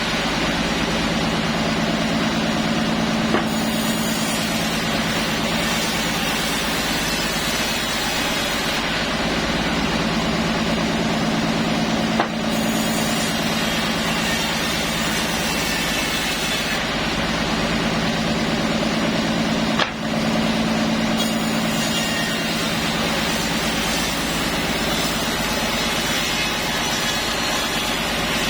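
Engine-driven sawmill saw running steadily while cutting mahogany wood, with three brief knocks along the way.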